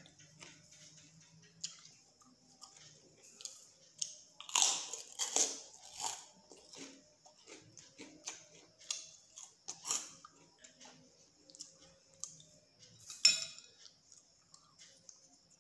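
Close chewing and biting of crunchy food, wet crackly mouth sounds coming in irregular bursts, busiest about four to six seconds in. A single sharp click, the loudest sound, comes about thirteen seconds in.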